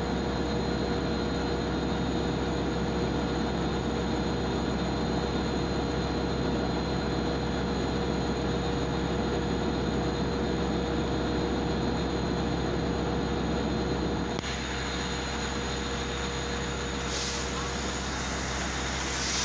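Long Island Rail Road DE30AC diesel-electric locomotive idling at the platform: a steady engine rumble with constant whining tones. The sound drops slightly about two-thirds of the way through, and a high hiss joins near the end.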